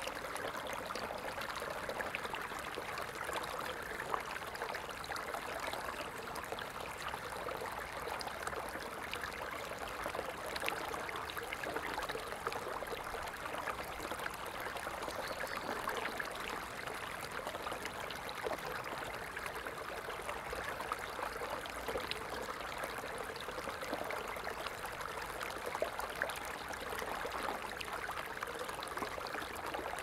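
Small stream of water running over stones, a steady babbling trickle with many tiny splashes and no pauses.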